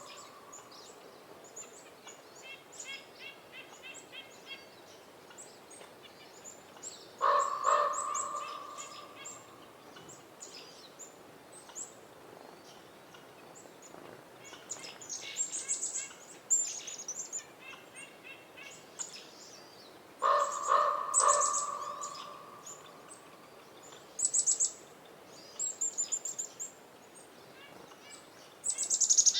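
Common raven calling twice, about 13 seconds apart, each call a short rapid run of deep croaks. Smaller birds chirp and twitter high-pitched throughout.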